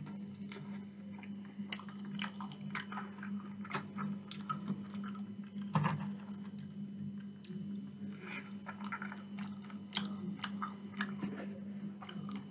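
Close-miked chewing of sauce-covered chips with the mouth open: many small clicks and smacks, with a louder click about six seconds in as the fork works in the polystyrene box. A steady low hum runs underneath.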